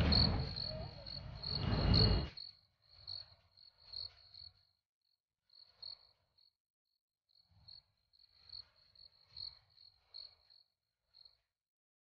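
Crickets chirping in a steady pulsing trill. For the first two seconds or so a loud commotion with a voice in it drowns them out. After that come faint scattered rustles and thumps of a scuffle.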